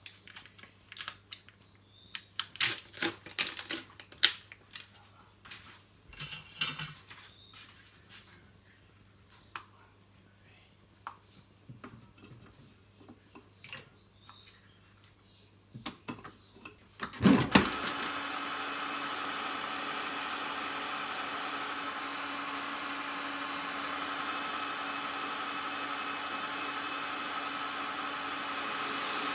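Spoon scraping and tapping as mascarpone is spooned into a stand mixer's steel bowl. About 17 seconds in there is a loud clunk, then the Kitchencook stand mixer's motor starts and runs steadily, its balloon whisk whipping cream with mascarpone.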